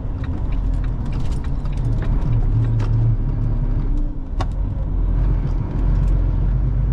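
Articulated lorry's diesel engine running with a steady low rumble, with a few faint clicks; the sharpest comes about four and a half seconds in.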